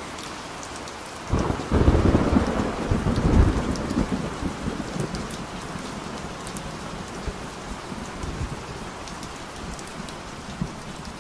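Heavy rain falling steadily, with a rumble of thunder breaking in about a second in, loudest for the next two seconds or so, then rolling away over several more.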